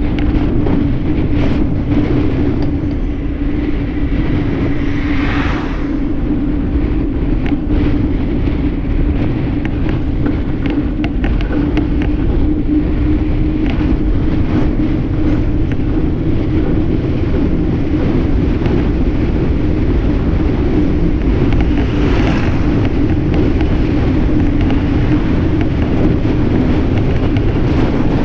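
Wind rushing over a bike-mounted GoPro's microphone during a fast bicycle descent, with tyre rumble on asphalt and a steady low hum.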